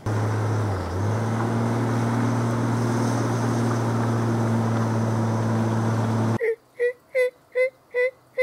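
Steady road noise of a bass boat being towed on its trailer, heard from the boat's deck, with a low, even hum. It cuts off about six seconds in, and a run of short, evenly spaced calls follows, about two and a half a second, made to get a turkey to gobble back.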